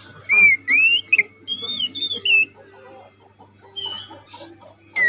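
Oriental magpie-robin singing a run of loud, rising and falling whistled notes, then dropping to soft, quiet chattering about halfway through before the whistles start again at the end.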